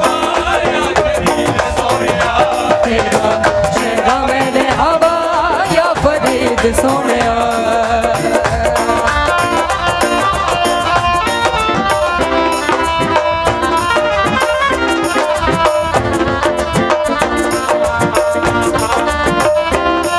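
Instrumental interlude of a live Punjabi devotional folk song: a melodic lead that glides and ornaments its notes for the first several seconds, then settles into held notes over a steady drum and percussion rhythm.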